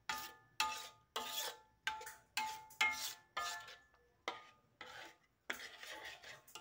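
Spatula stirring peanut sauce in a metal wok: scraping strokes about twice a second, each with a brief ring from the pan, growing softer in the second half.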